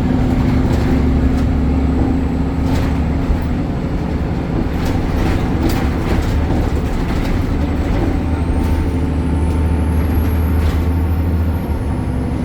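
BredaMenarini Avancity Plus city bus with its Deutz Euro 5 diesel engine running: a steady low drone with scattered rattles and knocks. A thin high whine rises a little past the middle and fades near the end, as the engine note drops slightly.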